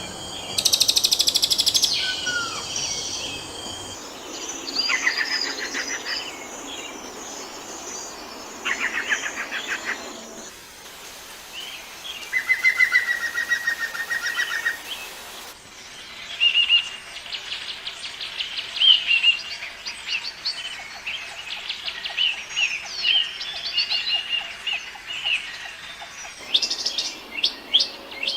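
Songbirds singing and calling in a series of spliced recordings: fast buzzy trills, several held on one pitch, then a long run of short, quick chirps, and a few falling notes near the end.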